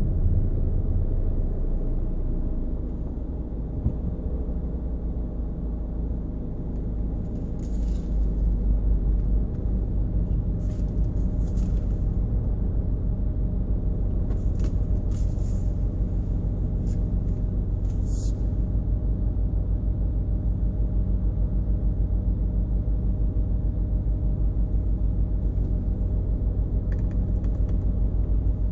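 Volkswagen Jetta TDI on the road with a steady low rumble and a fast, even pulsing in it, the constant rumbling, wobbling noise the owner is chasing. A few light rattles sound in the middle.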